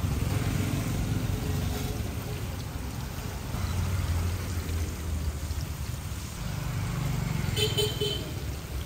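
Hot oil sizzling in a large wok as batter-coated bananas deep-fry, over a steady low rumble of motor traffic. A brief high-pitched tone sounds about eight seconds in.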